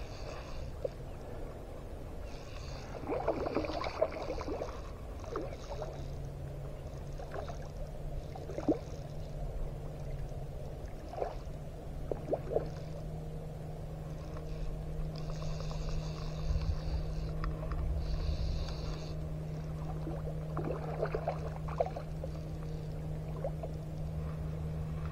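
Hooked redfish thrashing at the surface of shallow water, splashing in short scattered bursts, over a steady low hum.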